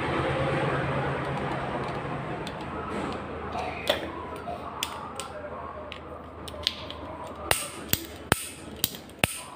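A steady rushing hiss and hum that fades out over the first few seconds, then scattered sharp clicks and taps of small hard parts being handled during gas stove repair work.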